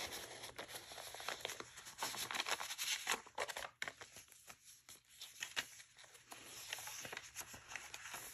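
Paper rustling as the pages and tucked-in paper inserts of a handmade journal are handled, pulled out and turned: a faint, irregular run of soft scrapes and small clicks.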